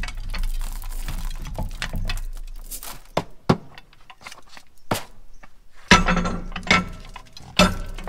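Hand clicks and metallic clanks from a planter's seed meter being taken apart over a metal bucket, three of them loud and ringing in the second half. A soft rattle of soybeans trickling into the bucket comes before them.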